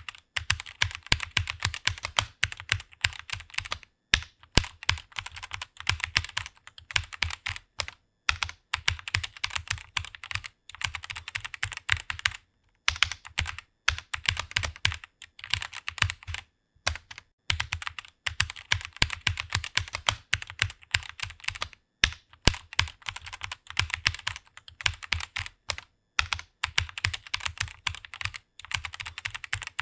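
Computer keyboard typing: fast runs of keystrokes with short pauses every few seconds.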